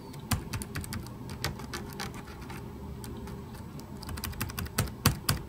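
Keys on an EPSON Direct Endeavor NY40S laptop keyboard (Backspace, Insert and Delete area) pressed one at a time: irregular light clicks, with a quick run of them near the end. These keys sound normal to the tester.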